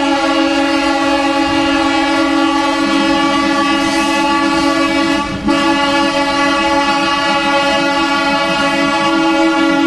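Train locomotive's horn sounded in one long continuous blast, breaking off for a moment about five and a half seconds in, over the rumble of the train rolling into the station.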